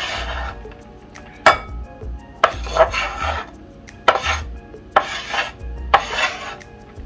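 Chef's knife chopping and scraping finely shredded cabbage and carrot on a wooden cutting board, in a string of about six short strokes.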